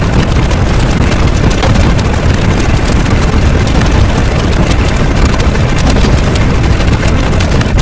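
A loud, steady, deep rumbling noise that runs without a break.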